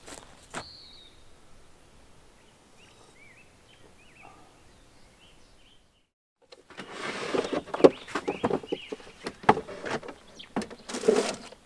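Faint bird chirps with a couple of soft footsteps, then, after a moment of silence, loud clattering and knocking of camp cooking gear being handled at the open back of a car.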